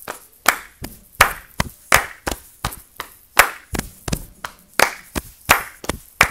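Body percussion: hand claps and slaps on the chest and thighs, several parts layered together in a steady repeating rhythm of about three strokes a second.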